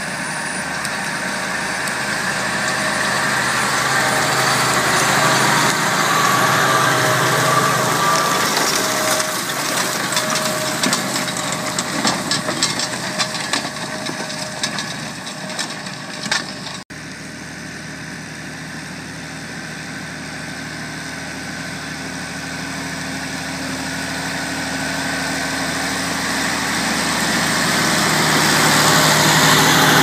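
Massey Ferguson tractor engine running under load as it pulls a six-furrow Overum reversible plough, with a crackle of stubble and soil being turned. The sound cuts out abruptly about halfway through, then the tractor grows steadily louder as it draws close.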